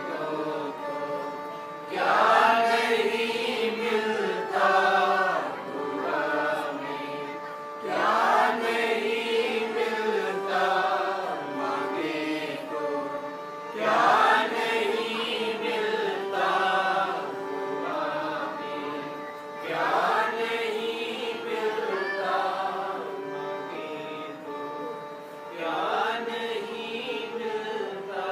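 Worship music with a sung melody, its phrase coming round again about every six seconds.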